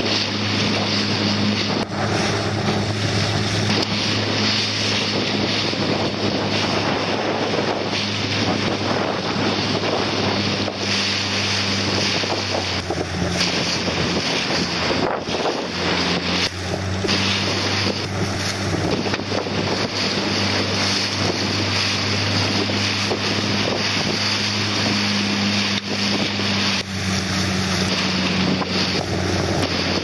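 Wind buffeting the microphone and water rushing and splashing past a boat's hull, over the steady low hum of a boat motor whose pitch shifts slightly a few times.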